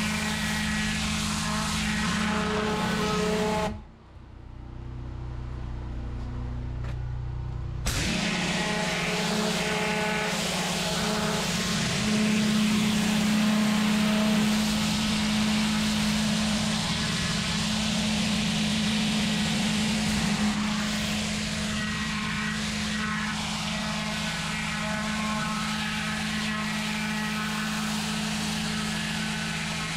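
Pressure washer running, its lance blasting a jet of water onto block paving: a broad spray hiss over the machine's steady hum. About four seconds in, the jet stops for roughly four seconds while the machine keeps humming, then the spray cuts back in suddenly.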